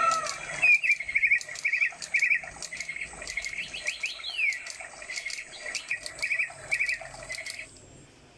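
Sound-control electronic peacock toy playing recorded bird chirps through its small speaker: quick twittering in short repeated clusters over a fast ticking, with one falling whistle about four seconds in. The chirping stops shortly before the end.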